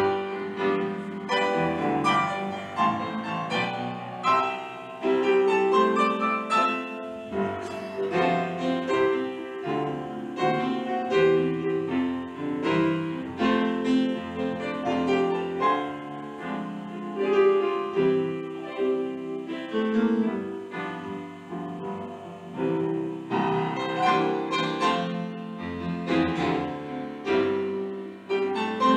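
Piano music: a solo piano playing a continuous run of notes.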